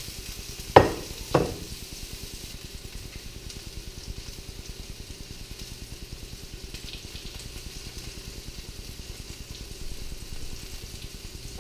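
Honey mushrooms sizzling as they fry in olive oil in a very hot pan, with two sharp knocks about a second in. The hiss is steady, and the mushrooms are starting to break down and give off water.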